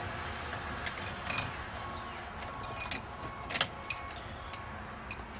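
Light metallic clinks and taps of steel tools and parts being handled: a handful of separate short clinks a second or so apart, over a low steady background noise.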